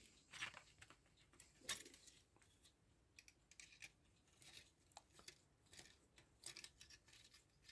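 Faint scattered clicks and light scraping of small metal parts being handled, as nuts are run onto the pillars holding a mechanical clock movement's plates together, with a slightly louder click about two seconds in.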